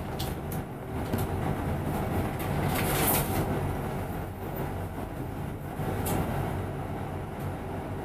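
Inside a double-decker bus on the upper deck: the bus's diesel engine running with a steady low hum, and cabin rumble and rattle as it creeps and then stands in traffic.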